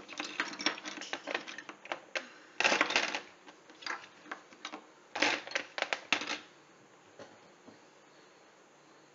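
Plastic chess pieces clicking and clattering against each other as hands sweep them off a roll-up chessboard. There are two louder rattles, about three and five seconds in, and the clicking stops about six and a half seconds in.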